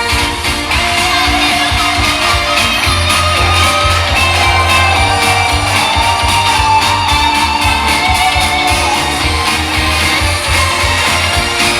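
Loud idol-pop music with female singing over a steady, heavy bass beat, played through a live show's sound system.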